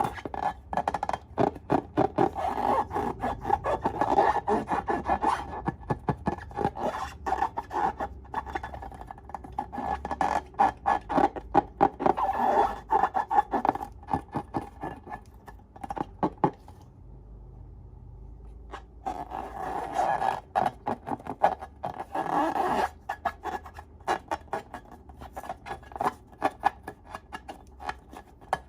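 Slime being squished and kneaded by hand, giving quick runs of sticky, crackling pops, with a short lull a little past the middle.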